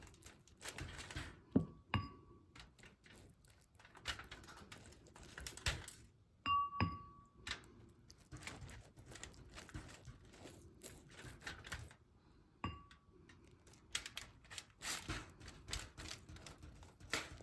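Knife spreading garlic butter onto cut Italian bread: scattered soft scrapes and taps, with a few short ringing clinks of the knife against the dish.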